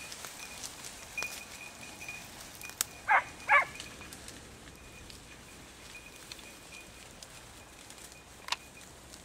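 Podenco hunting hound yelping twice in quick succession, about three seconds in: short, high cries of a hound giving tongue as it works the brush for rabbits.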